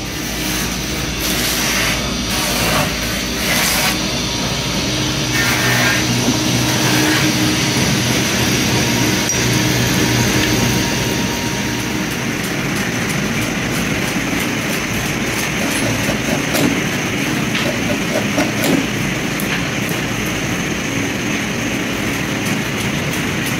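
Steady mechanical noise of running machinery, with a low hum that fades about eight seconds in.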